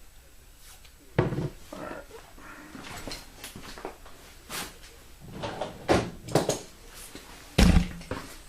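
Irregular knocking and clattering of tools and parts being handled on a workbench, ending in a heavy, deep thump near the end as the camera is kicked.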